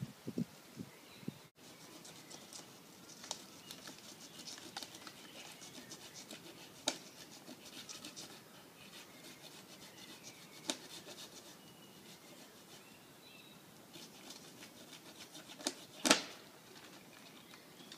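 Faint rustling with scattered light clicks and knocks from work in the tree's branches and rigging, a few sharper knocks standing out, the loudest near the end.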